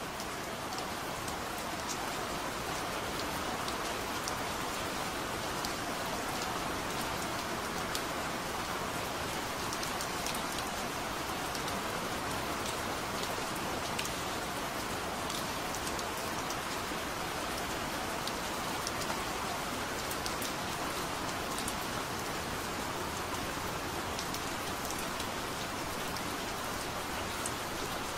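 Steady rain: an even hiss with many scattered sharp drop ticks.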